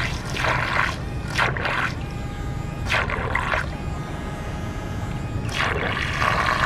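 Electric propeller motor of an RC bait fishing boat running in water: a steady whine over churning, splashing water, swelling several times.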